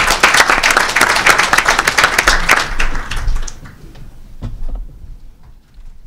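Audience applauding: a dense patter of clapping that dies away about three and a half seconds in, leaving faint rustles and a soft knock.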